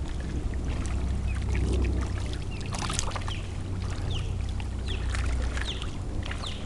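Fish trapped in a seine net, mullet and sand perch, splashing and flipping at the water's surface, making many small splashes and one louder splash about three seconds in, over a steady low rumble.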